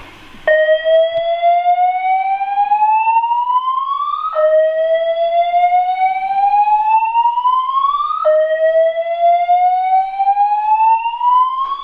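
Fire alarm voice-evacuation system sounding its slow-whoop tone: three loud rising sweeps, each about four seconds long and dropping back low to start again, after the spoken evacuation message.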